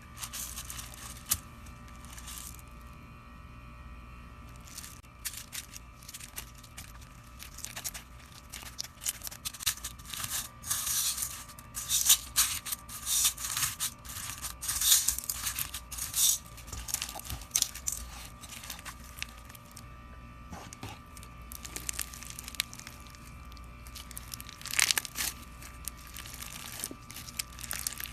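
Slime being squeezed and worked by hand, making irregular sticky crackles and pops that come thickest in the middle, over a faint steady electrical hum.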